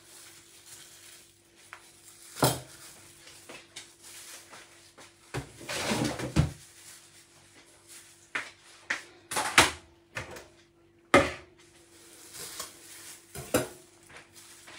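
Kitchenware being handled: scattered knocks and clatters of dishes and utensils, with a longer stretch of rattling about six seconds in, over a faint steady hum.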